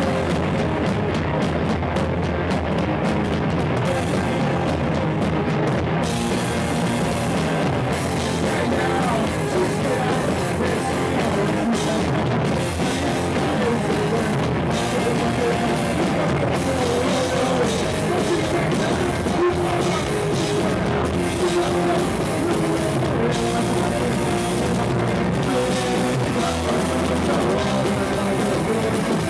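Rock music with a drum kit, loud and steady throughout.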